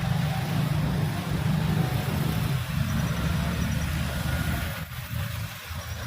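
Bus engine running at low speed in slow, jammed traffic, a steady low hum that drops away about five seconds in as the bus moves off.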